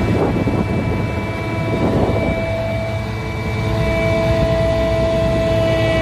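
Glider launch winch's engine running steadily under load as it hauls in the launch cable, a constant rumble with several held tones.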